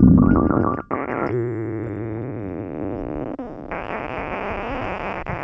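Stomach growling and gurgling. A heavy low rumble cuts off suddenly about a second in, then a steady wavering, bubbly gurgle carries on.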